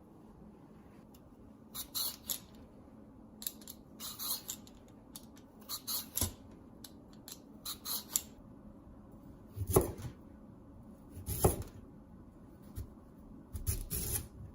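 Kitchen food-preparation handling: a string of short scrapes and rustles, with two louder knocks about ten and eleven and a half seconds in.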